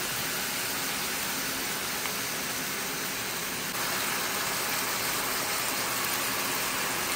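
Chilli chicken stir-fry with vegetables sizzling steadily in a hot pan on high heat; the sizzle gets a little louder about halfway through.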